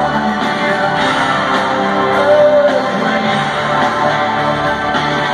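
Live rock band playing, with singing over guitar and sustained chords, heard from far back in a large arena.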